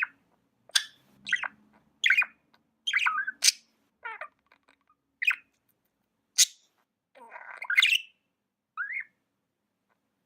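Pet budgerigars chirping: a string of short, sharp calls with gaps between them, many sliding down in pitch. The calls stop about nine seconds in.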